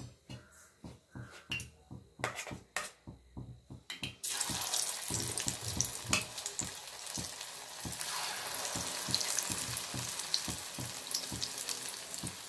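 Batter-coated cauliflower florets deep-frying in hot oil in a steel kadai, with a steady sizzle that starts abruptly about four seconds in. A few faint clicks come before it.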